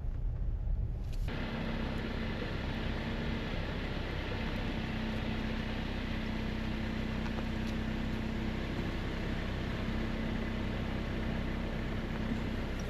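A steady engine-like drone with a held low hum, cutting in suddenly about a second in.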